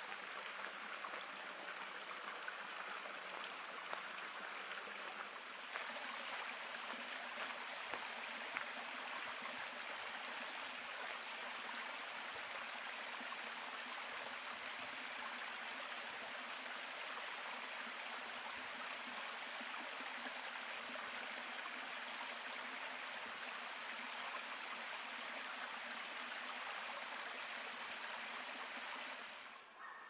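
Small stream running over mossy rocks, a steady rushing and trickling of water. It gets a little louder about six seconds in and drops away just before the end.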